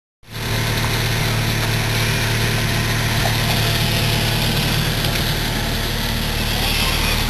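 Vehicle engine idling steadily, cutting in suddenly just after the start.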